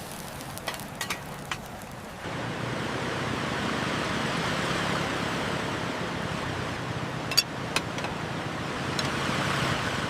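Battered mussels frying in hot oil, a steady sizzle that jumps louder about two seconds in, with a couple of sharp clicks near the end.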